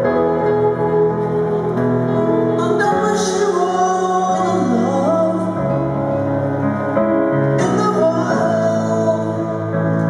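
Live music: a woman singing a slow ballad over guitar and piano, with long held notes.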